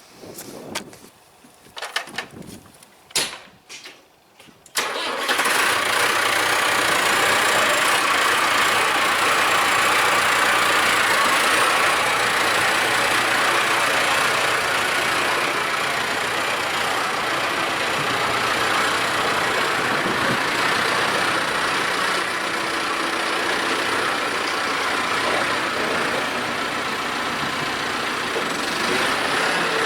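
A few scattered knocks, then about five seconds in a tractor engine starts suddenly and runs on steadily.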